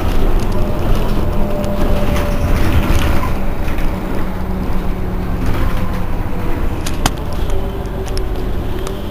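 Iveco Urbanway 12 city bus idling while stationary: a steady low engine hum. A single sharp click comes about seven seconds in.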